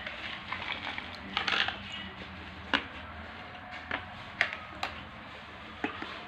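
Eating sounds: an eating utensil clicking against a bowl of boiled noodles, with a busier run of clicks about a second and a half in, then single sharp clicks at uneven gaps.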